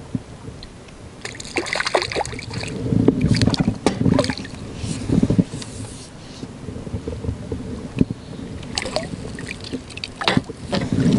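Water splashing and sloshing as a hooked fish is played at the surface and a landing net goes into the water, with sharp knocks and rustling from handling the rod and net in a small boat. The splashing is busiest a second or two in and comes again near the end.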